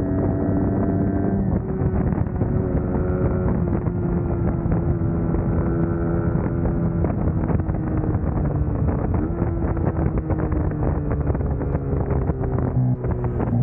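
Suzuki GSX-S150's single-cylinder four-stroke engine running under way at fairly steady revs, with wind buffeting the microphone. The engine note shifts a little about nine seconds in and changes again near the end.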